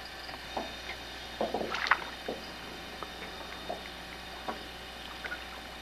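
Scattered light knocks and clicks of gear being handled in a small boat, busiest about one and a half to two seconds in.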